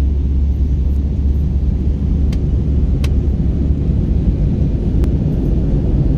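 Steady low rumble of engine and airflow noise inside a passenger airliner's cabin in flight, with a few faint clicks.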